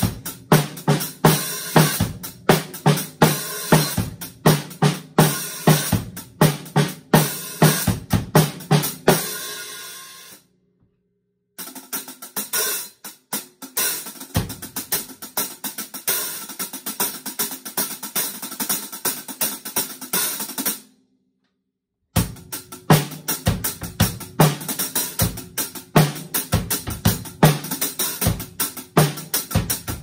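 Drum kit grooves built around a pair of 13-inch Dream Bliss hand-hammered hi-hats, with kick drum and snare. The playing stops briefly twice, about a third and two thirds of the way through, and in the middle passage the cymbal pattern runs over lighter drums.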